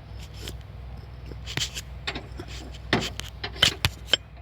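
Irregular sharp clicks, taps and short scrapes over a steady low hum, the loudest clicks coming about three to four seconds in.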